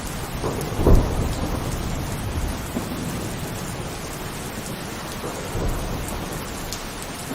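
Heavy rain falling steadily, with a sudden loud low thump about a second in that dies away over about a second, and a weaker one later.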